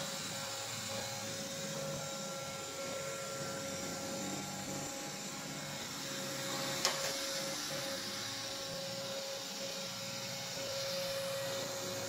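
Roborock S6 robot vacuum cleaning a shag rug: the steady hum of its suction fan with a steady mid-pitched whine. One sharp knock comes a little past halfway.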